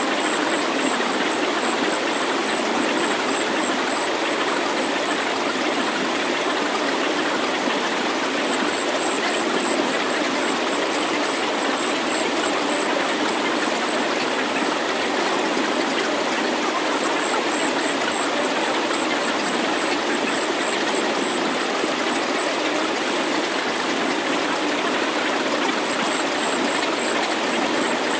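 Synthesized sound-healing track: a steady, even hiss of noise with almost no bass, and a faint high tone that pulses rapidly in several stretches.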